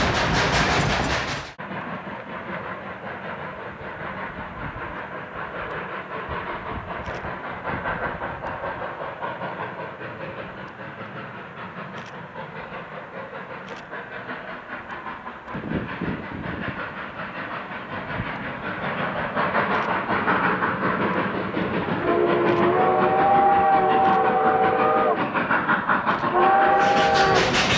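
Narrow gauge steam train running, with a steady rhythmic clatter of wheels on rail joints. Near the end the steam locomotive's chime whistle blows a long blast, then a short one.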